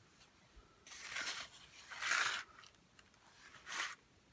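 Rustling and crinkling of a diamond painting canvas and its packaging being handled, in three short bursts.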